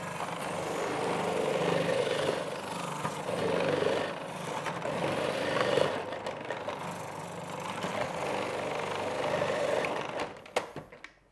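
Electric food processor running with a grating disc, shredding pumpkin as it is pushed down the feed tube. The motor note wavers as the pieces are pressed through. It stops about ten seconds in, followed by a few clicks.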